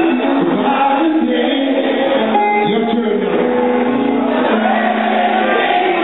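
Live reggae band playing, with a voice singing over the music.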